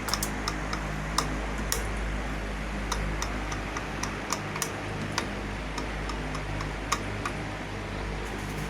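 Electric fan running with its motor humming while the oscillation gearbox clicks irregularly, about two sharp ticks a second: the clacking of worn, damaged gear teeth in the fan's rear oscillation gear.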